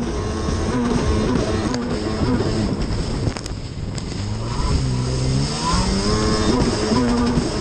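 Racing stand-up jet ski engine running at high revs under load, with water spray hissing against the hull and camera; the engine pitch falls and then climbs again about halfway through as the ski rounds a turn buoy.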